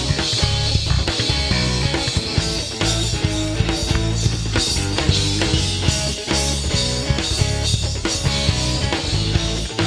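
Rock band playing an instrumental passage between sung lines: drum kit keeping a steady beat under bass and electric guitar.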